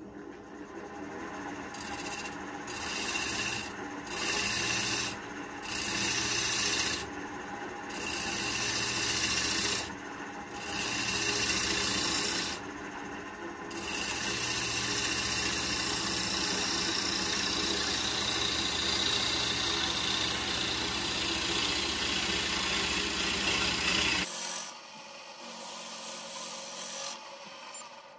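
Lathe gouge cutting the outside of a spinning wooden bowl blank, shavings hissing off the tool over the steady hum of a Record Power lathe's motor. The cuts come as about seven separate passes, then one long unbroken cut. Near the end the motor hum drops away and the cutting sound turns quieter.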